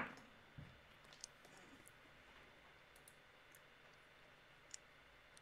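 Near silence broken by a few faint, short clicks; the sharpest comes right at the start.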